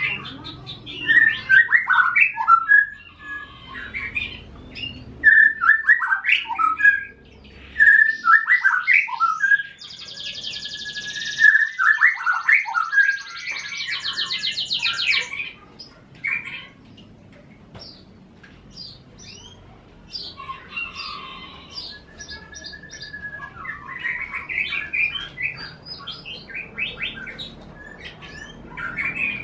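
Caged songbirds, a canary kept as a song tutor next to a white-rumped shama, singing in bursts of chirps and squawky phrases. A fast, high rattling trill comes about a third of the way in, and a few held whistled notes sound later.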